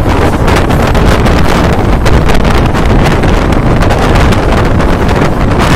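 Steady loud running noise of a Mumbai suburban electric local train moving at speed, heard with heavy wind buffeting on a microphone held out beside the coach.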